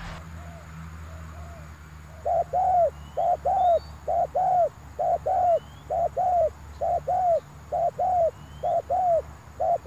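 Spotted dove (terkukur), the decoy bird used to lure wild doves, cooing close by. About two seconds in it starts a run of about nine double coos, each pair of notes swelling and falling, repeating about once a second. Faint chirps from smaller birds sound in the background.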